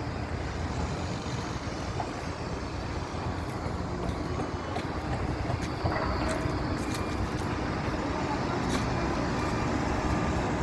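Steady low mechanical rumble, with a few light clicks between about six and nine seconds in.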